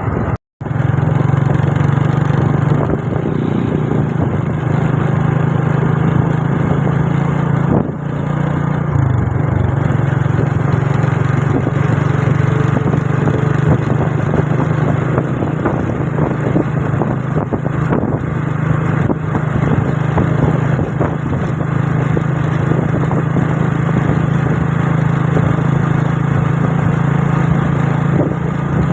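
A vehicle engine running steadily, a constant low drone under a hiss of noise. The sound cuts out briefly about half a second in.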